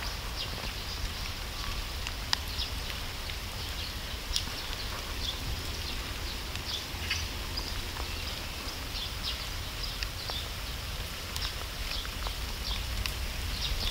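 Outdoor background sound: a steady low rumble with many short, faint, high-pitched ticks scattered irregularly throughout, and a sharper click about two seconds in.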